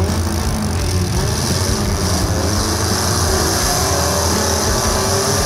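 Several demolition derby cars' engines running and revving together, loud and steady, their pitch wavering up and down as the cars manoeuvre.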